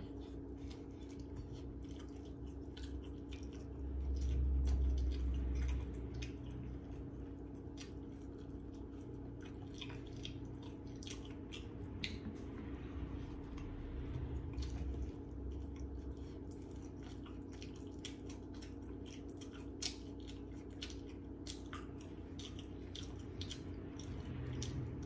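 Close-up chewing of a soft filled bun: wet mouth clicks and smacks, irregular and frequent, over a steady low hum. A louder low rumble comes about four seconds in and lasts a couple of seconds.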